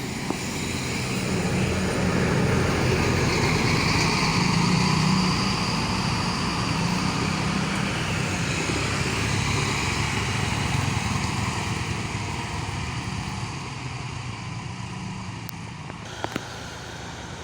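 Tour bus engine running as the bus passes by, going downhill. It grows louder over the first few seconds, then slowly fades away.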